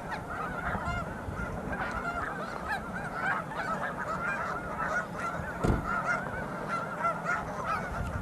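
A large flock of snow geese calling all at once: a dense, continuous chorus of short, high honks overlapping one another. A brief low thump sounds about halfway through.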